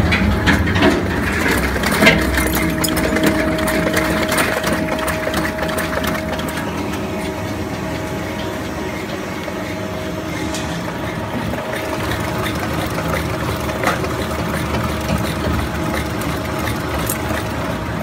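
Industrial shredder running and tearing up waste air-conditioner radiators: a steady machine hum with crackling and clattering from the scrap being cut. The clatter is busiest in the first couple of seconds, then settles into a steadier drone.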